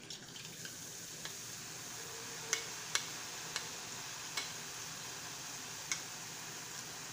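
Boondi frying: drops of gram-flour batter falling through a perforated ladle into hot sunflower oil and sizzling steadily. The sizzle builds over the first second, and a handful of sharp clicks cut through it.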